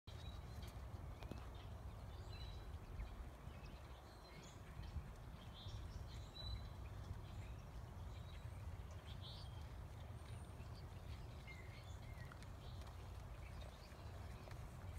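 Soft hoofbeats of a horse trotting on arena dirt, over a steady low outdoor rumble, with short bird chirps now and then.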